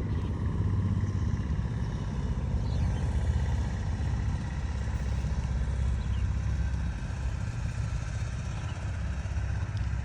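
Small engine of a rice transplanter running steadily, a low continuous drone.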